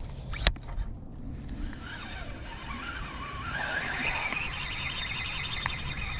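A sharp click about half a second in, then a fishing reel being cranked to bring back a topwater lure that has fouled on pine straw after the cast.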